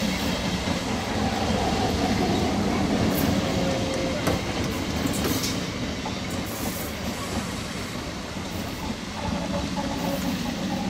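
Electric multiple-unit local train passing close by as it picks up speed: a steady rumble of coaches over the rails, with a few sharp clacks at the rail joints.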